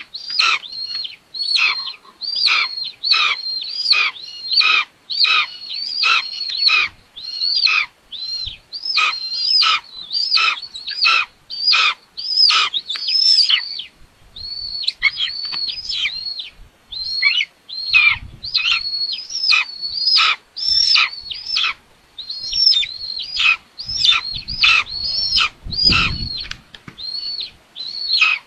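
Young buzzards on the nest giving shrill, repeated begging calls, about one and a half to two a second, while the parent feeds them. A brief low thump comes about three-quarters of the way through.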